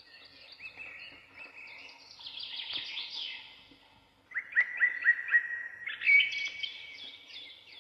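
Wild birds singing and chirping, several songs overlapping, with a run of about five quick repeated notes a little past halfway.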